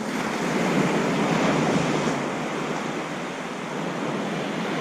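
Ocean surf breaking and washing up the beach, a steady rush of waves with wind buffeting the microphone.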